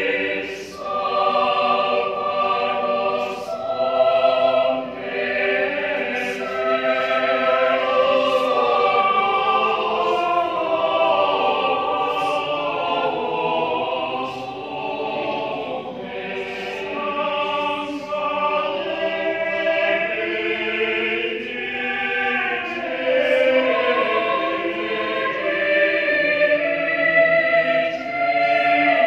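Mixed choir of men's and women's voices singing a choral piece in parts, holding long chords that move together, with the sung consonants clearly audible.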